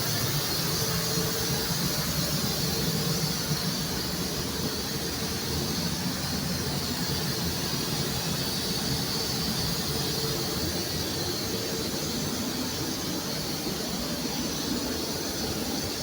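Steady mechanical hiss and hum, even throughout, with a faint high whine.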